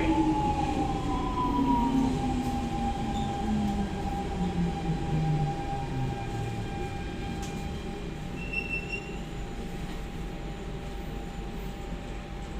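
SMRT C651 metro train's traction motors whining down in pitch as the train slows. The falling whine fades out about halfway through, leaving a steady tone over the rumble of the car.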